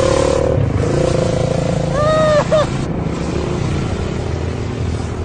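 Motorcycle engines running and revving in street traffic, with a short rising-and-falling call about two seconds in.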